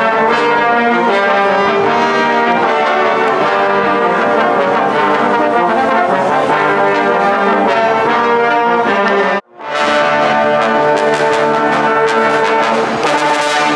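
A trombone ensemble playing held notes in several parts together. The sound cuts out briefly about nine seconds in, then the playing goes on.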